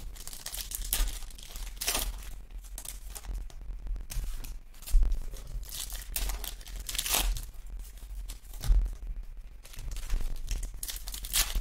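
Foil trading-card pack being torn open and crinkled by hand, in a run of irregular crackles and rips. A steady low buzz runs underneath, which the breaker puts down to static from his faulty microphone.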